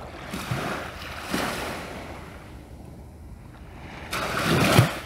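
Small waves washing against the shore: three rushing swells of water noise, the last one the loudest and ending abruptly.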